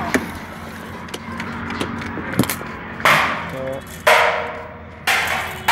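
A steel tape measure being pulled out and handled: a few light clicks, then three sharp scraping clatters about a second apart, each fading over about half a second.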